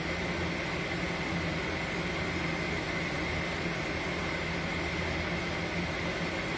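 Steady mechanical hum with hiss and a faint high whine, unchanging throughout.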